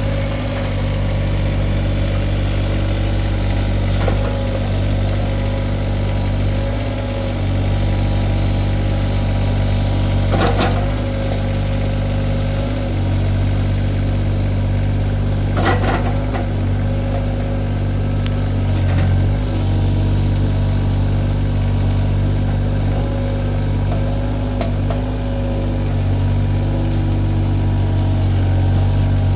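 John Deere 26G mini excavator's diesel engine running steadily under work, with a few sharp knocks scattered through as the machine digs.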